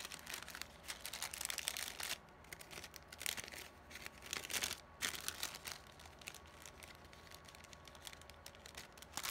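Clear plastic bag crinkling as hands handle and open it, in several crackly bursts over the first six seconds or so, then fainter.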